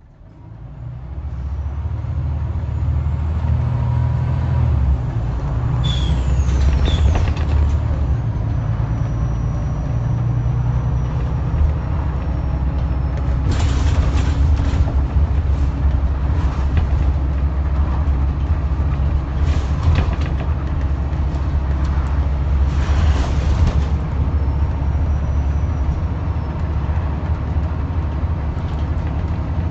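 Scania N94UD double-decker bus's nine-litre five-cylinder diesel engine pulling the bus along, heard from inside the passenger saloon, its low note shifting a few times as the bus changes speed. A few short hisses of air, typical of the bus's air brakes, come and go over it. The sound fades in over the first couple of seconds.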